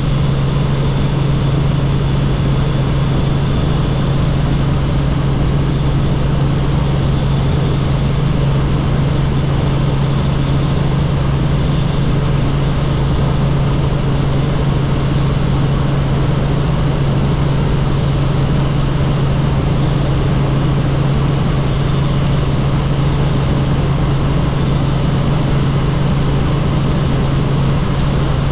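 Helicopter in flight: a loud, steady engine and rotor drone with a strong low hum, unchanging throughout.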